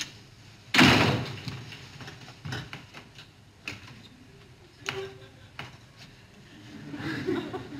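An apartment door shutting with a loud bang about a second in, followed by a few faint clicks and knocks.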